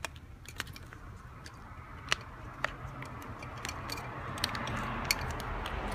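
Rubber HID wiring grommet being squeezed and worked into the hole drilled in a plastic headlight dust cap: scattered small clicks, with a rubbing noise that builds from about two seconds in.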